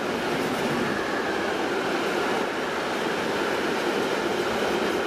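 A freight train of covered hopper wagons rolling past at speed, a steady noise of wagon wheels on the rails.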